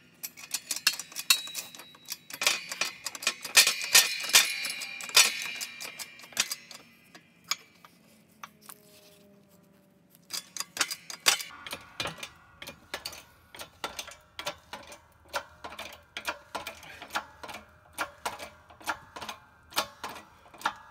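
Metal clinks and clatter of a steel pressing tool on a Cummins 4BT connecting rod's small end under a shop press, then, about ten seconds in, steady clicking about twice a second as the press is worked to push the wrist-pin bushing through.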